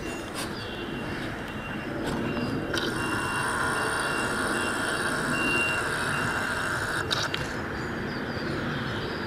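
Steady mechanical noise. A high whine joins it about three seconds in and cuts off about seven seconds in.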